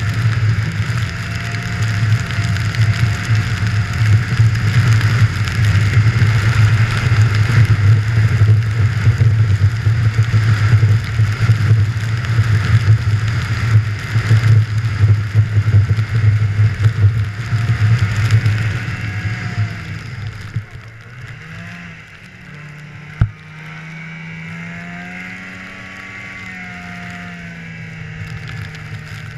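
Snowmobile engine running steadily at speed, with a hiss of track and wind over it. About two-thirds of the way through, the throttle eases off and the engine drops to a quieter, lower running whose pitch rises and falls gently. A single sharp click comes shortly after.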